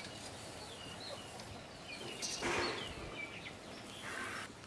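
Small birds chirping faintly in the background, with a brief rush of noise a little over two seconds in.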